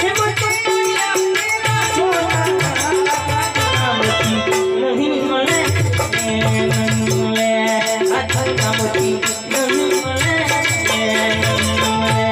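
Gujarati folk music with a steady drum beat and a shaker-like rattle under a short, repeating melodic riff. It plays continuously at an even loudness.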